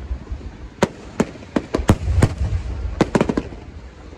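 Fireworks going off: about a dozen sharp bangs at irregular intervals, several in quick clusters, over a low rumble.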